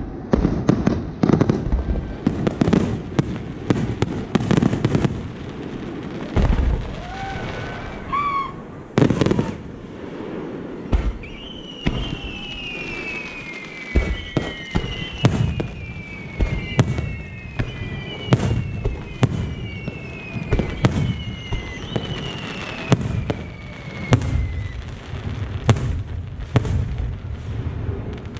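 Aerial fireworks in a climax barrage: rapid, overlapping booms and crackles of shells bursting. A rising whistle comes about eight seconds in, and a run of overlapping falling whistles sounds from about twelve to twenty-five seconds.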